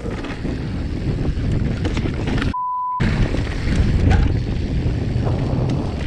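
Santa Cruz Bronson mountain bike rolling fast down a dry, rocky dirt trail: wind rushing over the microphone and the tyres and frame rattling over stones. About two and a half seconds in, all of it cuts out for half a second under a steady beep, a censor bleep.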